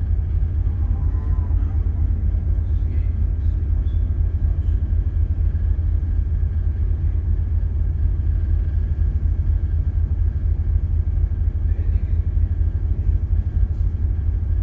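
Steady low rumble of a ship's engines and machinery, heard on the bridge, with a faint steady hum of tones above it.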